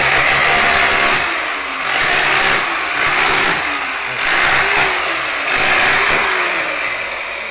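Electric demolition hammer chipping through a masonry wall, run in bursts of about a second each, its motor pitch dropping briefly between bursts.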